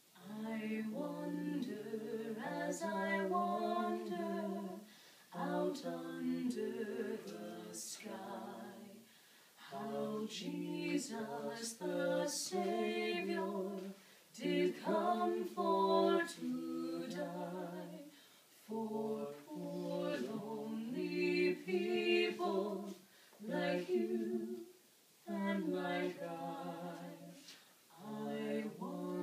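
A woman singing a Christmas song, in phrases of a few seconds each with short pauses for breath between them.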